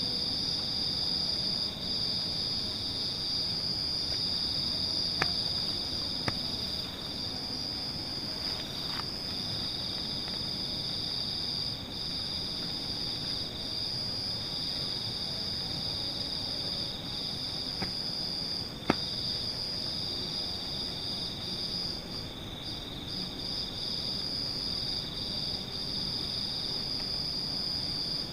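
Steady chorus of night crickets, a continuous high chirring over low background hiss, with a few brief clicks, the sharpest about two-thirds of the way through.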